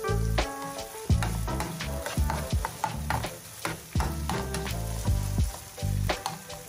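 Background music with a steady beat, over peppers and onions sizzling in a frying pan as a spatula stirs them.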